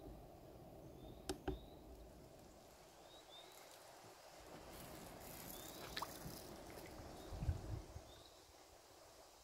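Quiet canoe paddling on calm water: soft water sounds, with two sharp knocks about a second in, another around six seconds, and a few low thumps later, typical of a paddle knocking the canoe's hull. Faint short high chirps repeat in the background.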